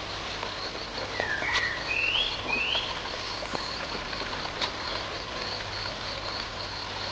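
Three short, rising, warbling high-pitched calls between about one and three seconds in. They sit over a faint steady high pulsing and a few scattered clicks.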